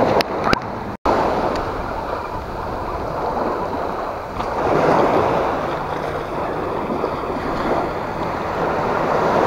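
Small sea waves washing up a sandy beach and against rocks, swelling louder about halfway through and again near the end.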